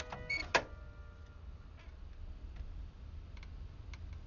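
A sharp click from a car's dashboard cigarette lighter being pushed in, followed by a few faint, irregular ticks over a steady low rumble.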